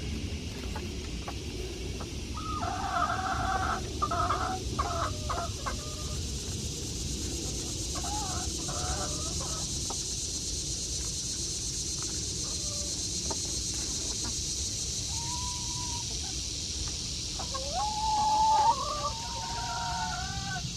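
Chickens clucking and squawking in irregular bursts, with the loudest calls near the end.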